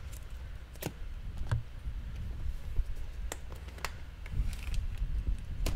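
Red release liner being peeled off 3M VHB double-sided tape from behind a plastic front bumper lip: a handful of sharp, separate clicks and ticks as the strip pulls away, over a low steady rumble.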